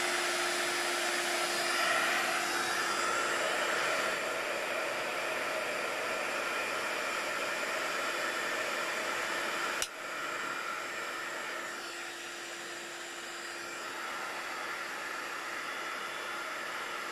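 Craft embossing heat gun running, a steady rush of blown air over a constant hum, melting embossing powder on a paper flower. A single sharp click comes about ten seconds in, after which the sound is a little quieter.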